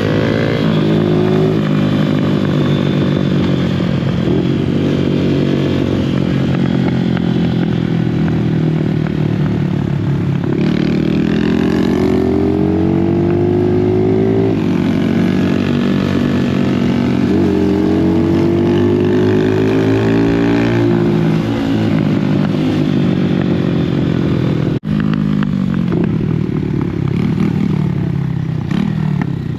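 Dirt bike engine running under load, its pitch rising and falling again and again as it is revved up and eased off, with a brief break about 25 seconds in.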